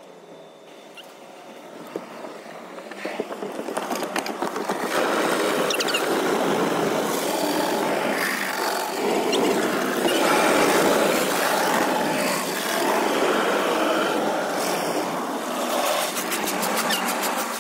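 Automatic tunnel car wash heard from inside the car: water spray and rotating cloth brushes scrubbing over the body and windshield. The noise builds over the first few seconds and stays loud, with a fast run of slapping strokes near the end.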